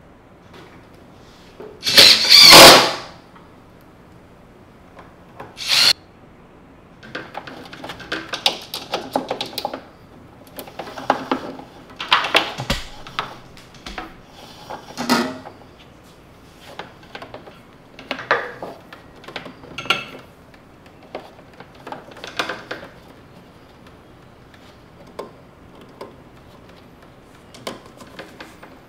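Cordless drill run in two short bursts, the first about two seconds in and loudest, the second near six seconds, driving a bolt. These are followed by irregular knocks and rustling of parts and a power cord being handled.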